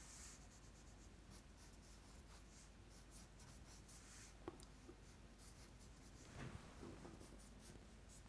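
Faint scratch of a felt-tip marker drawing quick, short sketchy strokes on paper, with one light tick about four and a half seconds in.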